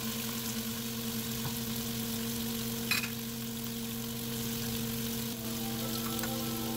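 Raw chicken pieces sizzling in hot oil with minced garlic in a nonstick pan, the meat freshly added. A single sharp clack comes about three seconds in, the metal spoon knocking the pan.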